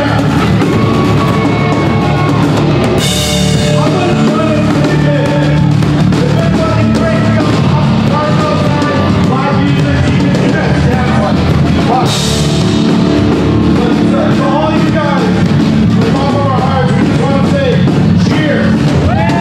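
Live alternative rock band playing loud: distorted electric guitar and drum kit, with a singer's voice over the band. Two big cymbal crashes come about three seconds in and again about twelve seconds in.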